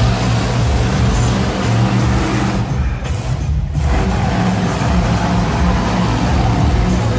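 Monster truck engine running loud and revving as the truck drives around, with a brief dip about three seconds in. Arena music plays underneath.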